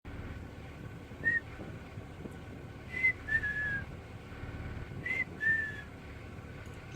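A run of short whistled notes: one single note, then two pairs, the second note of each pair drawn out and falling slightly in pitch, over a steady low rumble.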